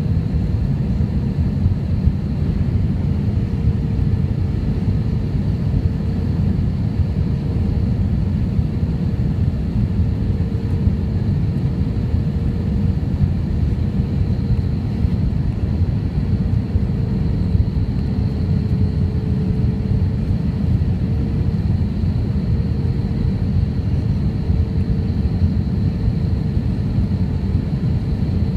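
Cabin noise inside an Airbus A319 on approach: the steady rush of airflow and engine hum, with a thin droning tone that wavers slightly in pitch.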